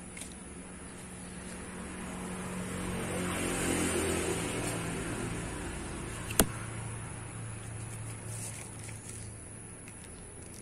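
A road vehicle passing, its noise swelling to a peak about four seconds in and then fading away over a low hum. A single sharp click about six seconds in.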